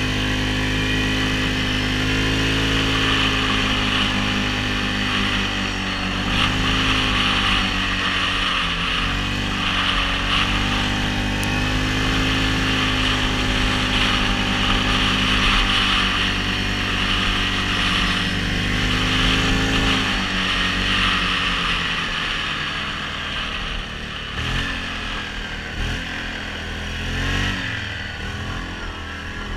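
Yamaha Grizzly 700 ATV on snow tracks, its single-cylinder four-stroke engine running under fairly steady throttle. After about twenty seconds it eases off, and the engine note rises and falls several times near the end as the throttle is worked.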